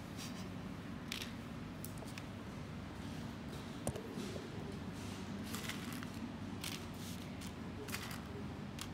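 Light rustling and scattered soft clicks of dried beans being handled in a cup and of a sheet of card sliding on a table, over a steady low room hum. There is one sharper click about four seconds in.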